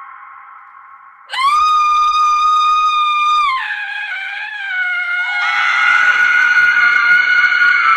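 A woman screaming as a sound effect. A high scream starts suddenly about a second in and holds a flat pitch for about two seconds, then drops lower and wavers. A louder, fuller scream starts past the middle.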